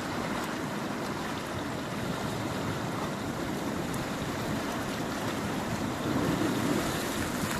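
Steady sea and wind noise, with wind buffeting the microphone.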